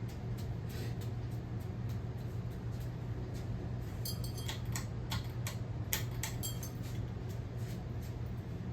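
Hampton Bay Glendale III ceiling fan running with a steady low hum, with a few light metallic clicks and clinks about four to seven seconds in.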